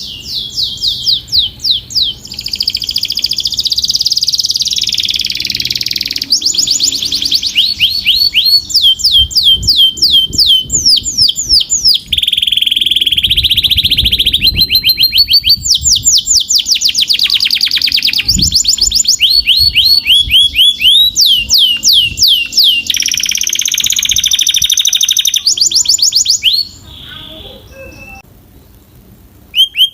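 Canary singing a long song of fast trills, each run of rapidly repeated notes lasting a second or two, with buzzy held notes in between. The song breaks off about three seconds before the end.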